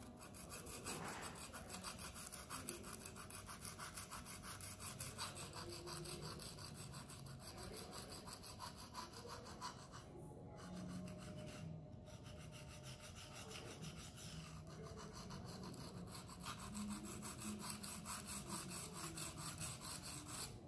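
Knife blade of a Twosun TS265 fixed blade stroked back and forth on a Venev resin-bonded diamond sharpening stone: even rubbing strokes, about two to three a second, with two brief pauses about halfway through. This is the second side of the edge being worked after a burr was raised on the first.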